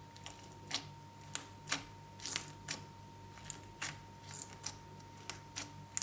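Crunchy slime crackling in irregular sharp clicks and pops, two or three a second.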